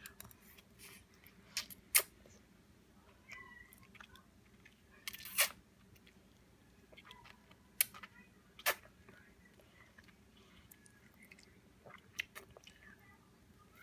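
A toddler slurping and chewing lo mein noodles fed from a fork: several short, sharp wet slurps and mouth smacks with quieter chewing in between, one slightly longer slurp about five seconds in.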